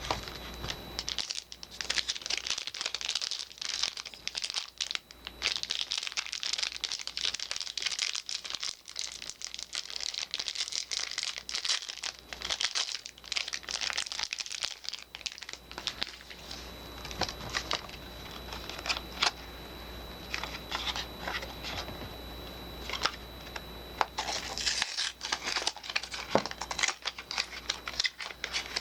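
Soap bar packaging being crinkled and torn open by hand: dense, crackly rustling with sharp clicks. It is busiest through the first half and again near the end.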